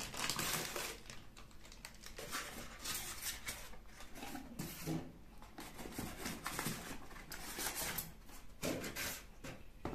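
Irregular rustling, scraping and light knocks from packaging being handled: polystyrene inserts and plastic-wrapped jars moved about in a cardboard box.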